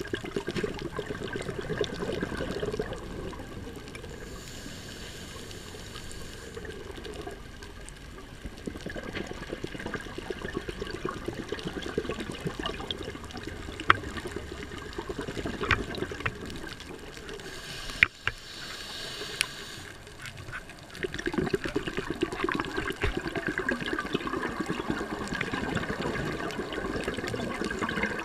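Underwater sound through a camera housing: bubbling and gurgling from a scuba diver's exhaled breath for the first few seconds and again over the last several seconds, with a quieter stretch between marked by a few sharp clicks.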